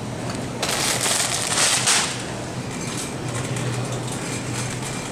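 Supermarket room tone with a steady low hum, and a crinkling rustle lasting about a second and a half, starting about half a second in.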